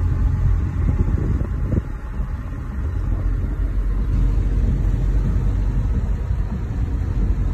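Steady low rumble inside a car cabin as the car drives through floodwater on a rain-soaked street.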